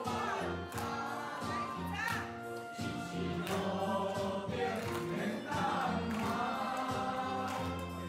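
Saxophone ensemble playing a melody together over a backing track with a steady bass line.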